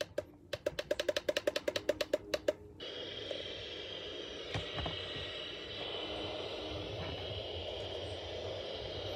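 A quick, even run of about fifteen clicks, each with a short tone. Then, nearly three seconds in, a clock radio comes on with a steady hiss of static.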